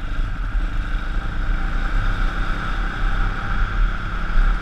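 YX 160cc single-cylinder four-stroke pit bike engine running at a steady, moderate pace, a freshly fitted engine being run in and kept off high revs. An uneven low rumble of wind buffets the microphone.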